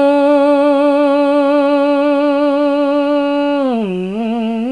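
A woman singing unaccompanied, holding one long note with vibrato, then sliding down in pitch and back up near the end.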